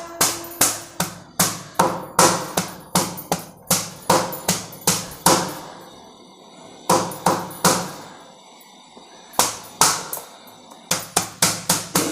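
Fresh ginger being pounded to crush it: a quick run of sharp knocks, about two or three a second, broken by two short pauses in the middle.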